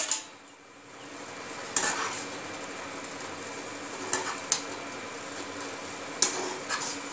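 A steel spoon stirring grated coconut cooking in milk in a granite-coated non-stick frying pan, with about five sharp scrapes against the pan over a steady sizzle from the simmering mixture.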